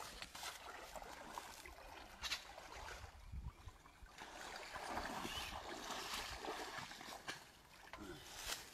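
Shallow pond water sloshing and splashing around a person wading in waders and working a dip net, with a few sharp splashes in the first half and a longer stretch of splashing and running water in the middle as the net is emptied into a tub.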